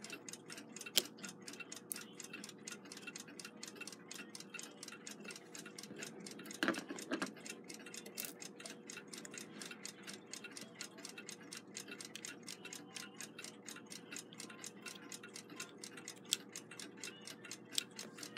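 A mechanical clock ticking quickly and evenly, with a single louder knock of parts being handled about a third of the way in.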